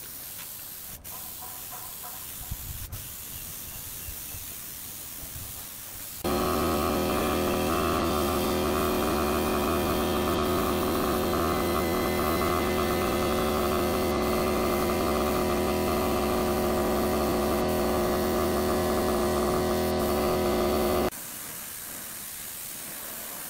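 Air spray gun hissing as it sprays clear finish onto a wooden tabletop. From about 6 s to 21 s a much louder steady machine hum with several fixed tones sets in suddenly, then cuts off just as suddenly.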